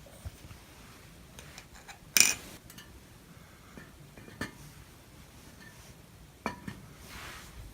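Scattered light clicks and clinks of small hard objects being handled, with one short, louder scrape about two seconds in and a soft rustle near the end.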